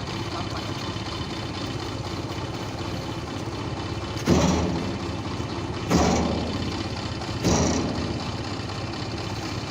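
Truck engine running steadily, with three short surges about a second and a half apart.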